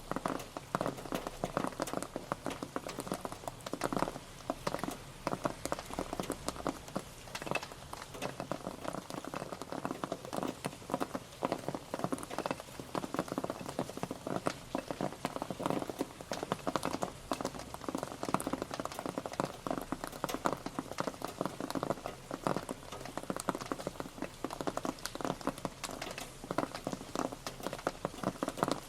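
Rain pattering steadily, a dense, irregular stream of drops hitting a surface.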